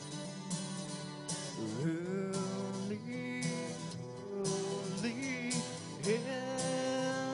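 Acoustic guitar strummed in a steady rhythm, with a man singing long, held notes over it that slide up into pitch, starting about a second and a half in.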